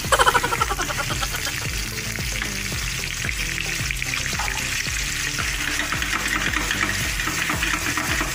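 Raw chicken pieces sizzling in hot oil with garlic and onion in a stainless steel pan, stirred with a spatula. The sizzle is loudest in the first half-second, then settles to a steady frying hiss.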